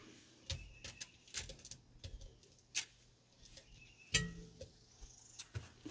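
Faint scattered light taps and crinkles as kielbasa slices are laid one by one onto the aluminium foil lining a cast-iron Dutch oven, with a brief louder sound about four seconds in.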